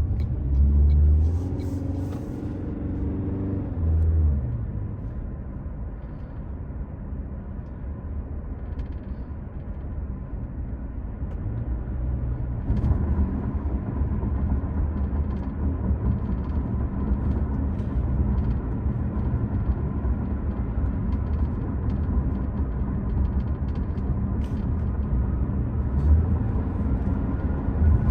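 A 2025 Toyota Prius hybrid driving: a steady low road rumble with the powertrain's note. A pitched note falls away over the first few seconds, as when slowing, and about twelve seconds in the rumble gets louder with a steady hum added.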